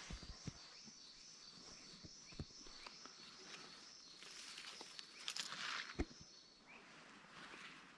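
Footsteps through bush leaf litter and twigs: scattered soft crunches and knocks, with a burst of brushing and rustling a little past halfway. A faint steady high-pitched whine sits behind them and stops about two-thirds of the way through.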